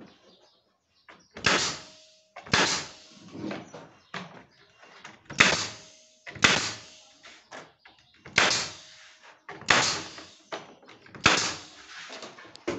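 Pneumatic pin nailer firing pins through cedrinho ceiling boards into a wooden frame: about eight sharp shots at irregular gaps of a second or more, each fading quickly.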